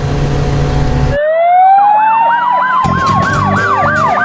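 An engine rumble cuts off about a second in. A police siren starts in its place, winding up in a long rising wail, and soon a fast up-and-down yelp joins it at about three cycles a second.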